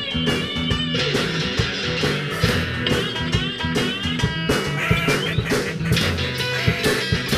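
Rock music with guitar over a steady bass line and drums.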